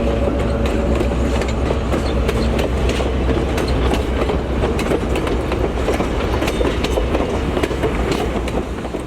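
A train hauled by an EMD GP9 diesel locomotive running on the line: a steady engine drone under rapid, irregular clicks and clacks of wheels over the rail. It eases off a little near the end.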